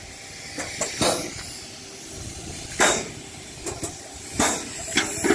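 Air-driven (pneumatic) pump of a polyurethane floor-coating spray rig: four short, sharp hisses of exhausting air, irregularly spaced, over a steady background rumble.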